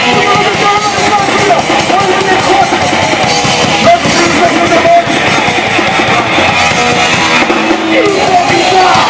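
Old-school punk rock band playing live at full volume: distorted electric guitar, bass and driving drums with steady cymbal hits.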